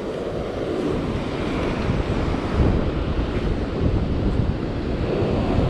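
Ocean surf washing onto the beach, with wind buffeting the microphone in low, ragged gusts.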